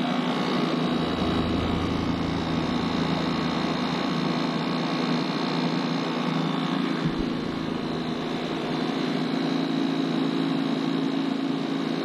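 PTAC unit running in heat mode: the compressor and indoor fan motor give a steady hum, with the fan motor, on a newly fitted fan blade, vibrating a little.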